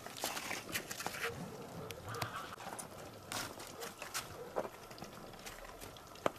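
Cattle drinking at a metal water trough, with irregular clicks and knocks from hooves and the trough, and one sharp knock near the end.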